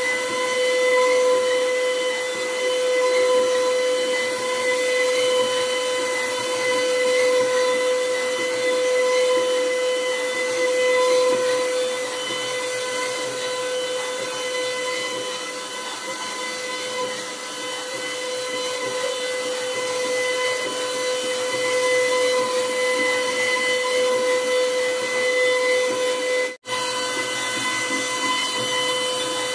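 CNC router spindle running with a steady high whine while its bit carves a pyramid pattern into a wooden board, the cutting noise swelling and easing as the head moves. The sound cuts out for an instant near the end.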